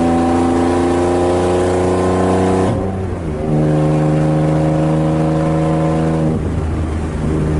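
BMW E36 325is straight-six engine running under load in gear at a fairly steady pitch, with a brief break about three seconds in, like a gear change, and another change in pitch after about six seconds.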